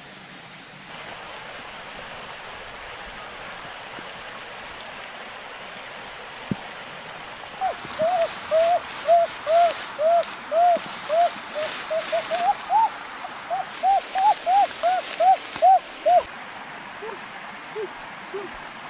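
A bird calling a long run of short hooting notes, about three a second, starting about eight seconds in and rising a little in pitch before stopping. A few lower, falling notes follow near the end, all over a steady background hiss.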